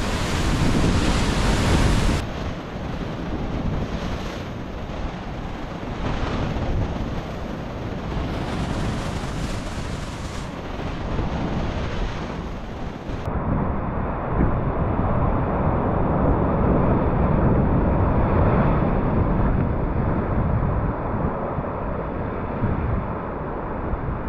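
Ocean surf and wind rushing over the microphone as a steady roar, changing abruptly twice, about two seconds in and again near the middle.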